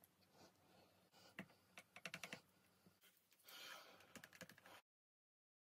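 Faint clicks and taps of wooden stir sticks against a plastic cup and a glass jar as ink colouring is stirred into clear epoxy resin. There is a quick run of clicks about two seconds in, and the sound cuts off abruptly near the end.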